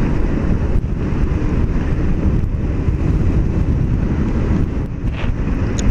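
Steady ride noise from a scooter under way: wind rushing over the helmet microphone mixed with the scooter's engine and the road.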